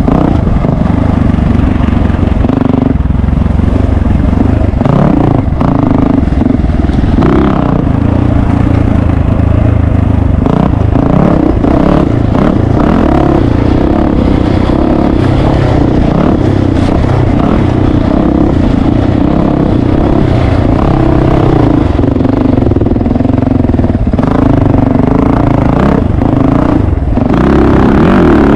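Yamaha YZ450FX dirt bike's single-cylinder four-stroke engine running under changing throttle, its pitch rising and falling as it rides a rough dirt trail. Short knocks and clatter from the bike over the rough ground come through here and there.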